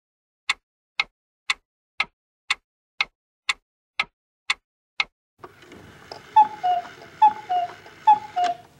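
Clock ticking, two ticks a second, stopping about five seconds in. Then, over a faint hiss, a falling two-note call sounds three times.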